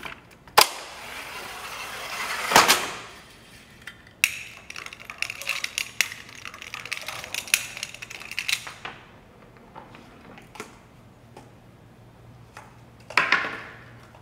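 Balls rolling along the tracks of a homemade Rube Goldberg machine, with clicks and knocks as its parts trip one another. A roll swells for about two seconds and ends in a loud knock, then comes a run of rattling clicks, and a short clatter near the end.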